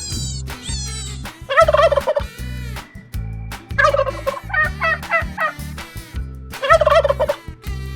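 Domestic turkey gobbling three times, each a rapid rattling call, over a backing track with a steady beat.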